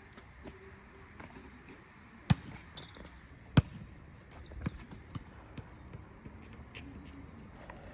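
Two sharp knocks about a second and a half apart, then a softer one about a second later, among faint scattered clicks.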